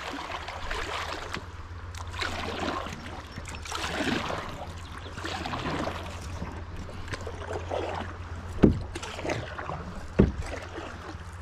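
River water splashing and running around a paddled boat, with two sharp thumps near the end, about a second and a half apart.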